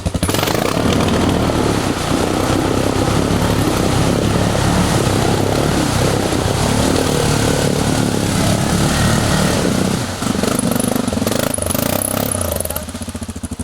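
ATV engine running hard under throttle, with a brief dip about ten seconds in, then falling back to an even, pulsing idle near the end.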